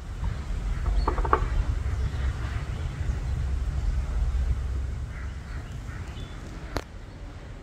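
Wind rumbling on a phone microphone outdoors, easing after about five seconds. Over it come faint bird chirps, a short call about a second in, and a single sharp click near the end.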